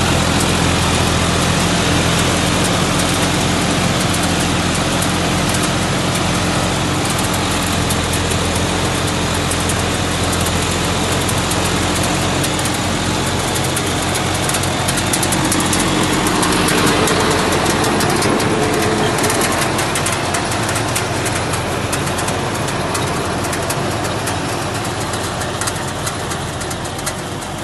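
John Deere tractors' diesel engines running steadily with tractor-mounted super seeders, a loud mechanical drone with a busy clatter of fine clicks in the second half.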